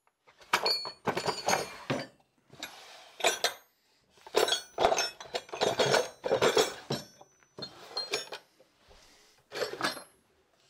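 Wooden tool-chest drawers pulled open and pushed shut several times, the loose steel punches and chisels inside them clinking and rattling against each other with each movement.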